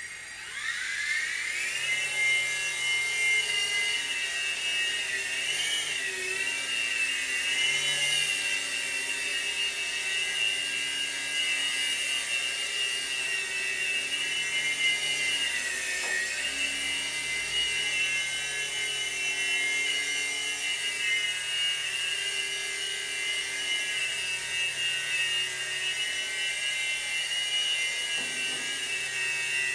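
Revell Rotobot three-channel micro RC helicopter's electric rotor motors spinning up with a rising whine over the first couple of seconds, then a steady high-pitched whine as it flies, the pitch briefly dipping and rising now and then with throttle changes.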